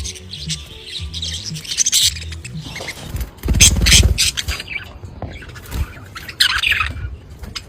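A colony of budgerigars chirping and chattering, with quick high chirps throughout. About halfway through, a loud low rustling burst lasts about a second.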